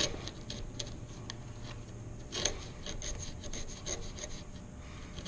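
A 3/4-inch wood chisel pared by hand pressure through a groove in a board: a run of short scraping strokes and small clicks as chips break away, with one louder stroke about halfway through.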